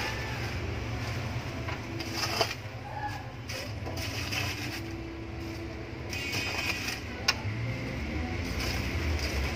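Steady low rumble of street traffic with faint distant voices, and two sharp clicks of metal tongs, one about two and a half seconds in and one about seven seconds in.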